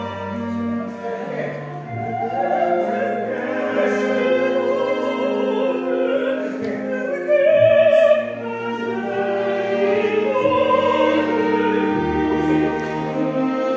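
A woman singing in operatic style with strong vibrato, accompanied by a string orchestra playing sustained notes. Her voice swells to its loudest on a held note about halfway through.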